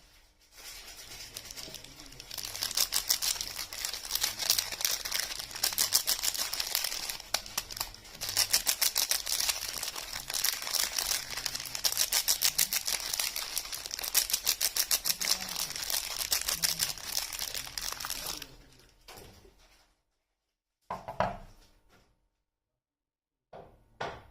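Soap packaging being unwrapped: a long, dense run of rapid crinkling and tearing. It stops about eighteen seconds in, followed by two brief rustles near the end.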